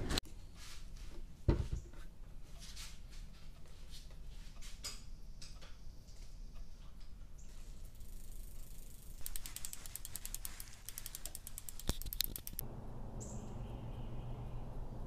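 Bicycle in a repair stand being worked on: scattered clicks and knocks, then a few seconds of rapid, even clicking from the rear freehub pawls as the wheel spins. Near the end the clicking stops and a quieter outdoor background follows, with one short high chirp.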